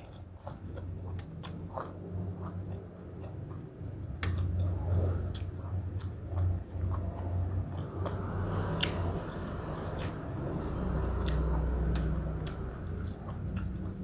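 A person chewing a mouthful of spicy pork salad and raw greens close to the microphone, with wet mouth sounds and frequent small smacks and clicks.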